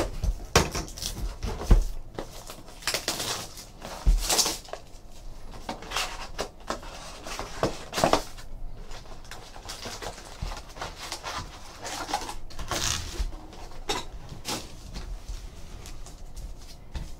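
Handling sounds of opening a sealed trading-card hobby box: a blade slitting the plastic wrap, the cardboard box being pulled open, and foil card packs sliding and tapping onto a table. The sounds are irregular crinkles, scrapes and light knocks, loudest in the first few seconds.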